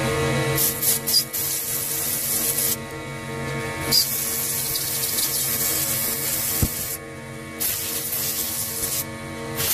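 Compressed-air blow gun blasting out the grooves of a pole pruner's guide bar in four hissing blasts, each one to three seconds long, over steady background music.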